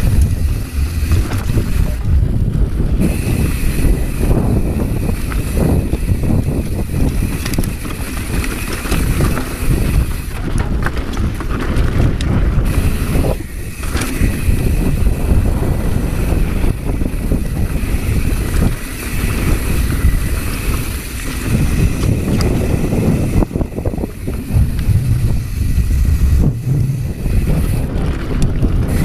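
Wind buffeting the camera microphone and mountain bike tyres rumbling over a dirt trail on a fast descent, with occasional knocks and rattles from the bike over rough ground.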